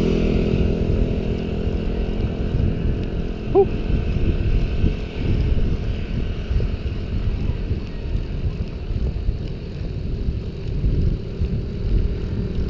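Wind rumbling and buffeting on the microphone as a bicycle rides along a paved road, with the engine of a motorcycle just ahead fading out at the start. A short chirp sounds about three and a half seconds in.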